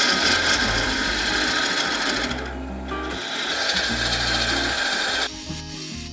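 A lathe gouge cutting the inside of a spinning wooden bowl, a continuous hissing scrape of the cut, over background music. The cut eases off briefly about two and a half seconds in, resumes, and stops a little after five seconds.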